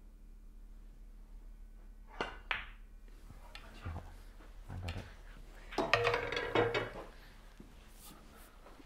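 Snooker shot: a sharp click of the cue striking the cue ball about two seconds in, then duller knocks of balls on the table. Around six seconds in, men laugh.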